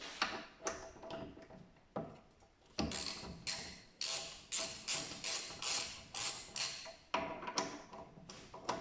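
Socket ratchet working bolts on a motorcycle's front fork: a few scattered clicks, then from about three seconds in an even run of short ratcheting strokes, about two and a half a second.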